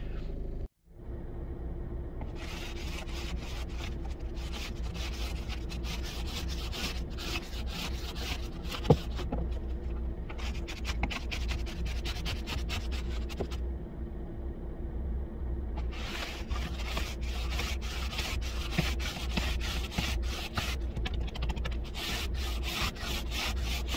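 Plastic ice scraper scraping frost off a car windscreen in quick repeated strokes, heard from inside the car through the glass. The strokes come in three runs with two short pauses, over a steady low hum.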